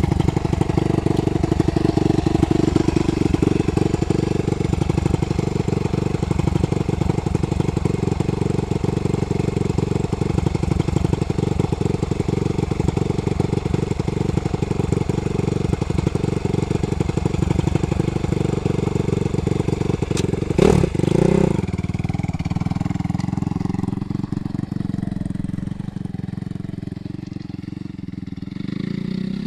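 Suzuki RM-Z250's single-cylinder four-stroke engine with a Pro Circuit exhaust running at idle while warming up. About two-thirds through it takes a short, sharp burst of throttle, then fades as the bike rides away, with revs rising near the end.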